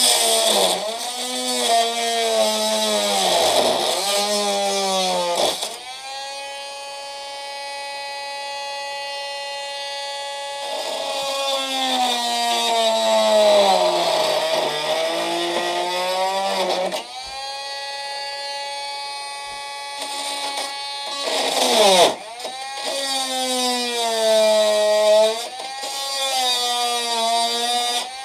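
A handheld power saw's motor cutting the copper tubing of an air-conditioner coil. It runs in several stretches of a few seconds, its pitch sagging as the blade bites and rising again as it frees. Between cuts it runs steadier and quieter.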